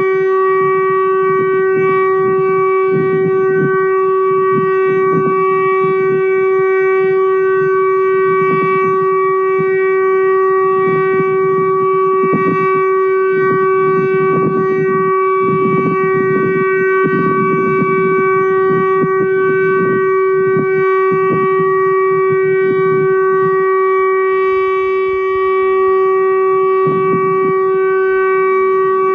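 Warning siren sounding a steady tone: one unchanging pitch held without rising or falling, with a fluctuating low rumble underneath.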